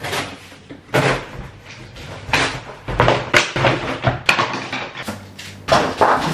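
Cardboard packaging of a flat-pack vanity being cut open and pulled apart, with the wooden panels inside scraping and knocking as they are unpacked. It comes as an irregular series of rustles, scrapes and knocks.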